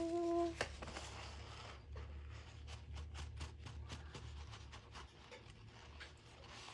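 Faint light taps and rubbing from hands working with painting materials, coming thickly for a couple of seconds in the middle, over a steady low hum. A short pitched note sounds at the very start.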